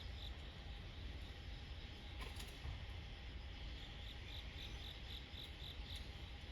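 Insects chirping outdoors, with a regular pulsed song of about three short chirps a second in the second half. A low rumble runs underneath.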